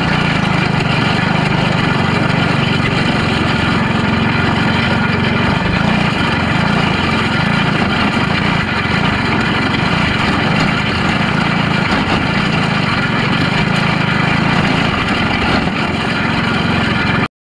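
Box stock micro sprint car engine running steadily at low speed, heard from on board the car, with a steady low drone; it cuts off suddenly near the end.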